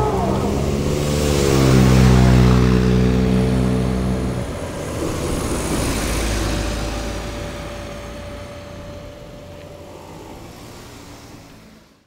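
Small cars and light vans driving over the level crossing, one engine pulling away with a pitch that dips and then holds for a few seconds, then the traffic sound fading out near the end.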